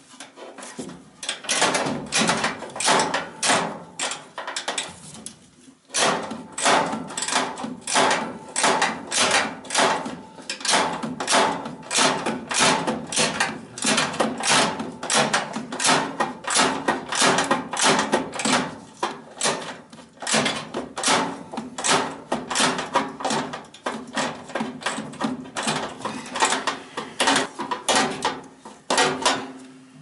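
Ratcheting socket wrench turning a bolt on a furnace blower motor mount: quick strokes of ratchet clicks, about three a second, with brief pauses about five seconds in and about twenty seconds in.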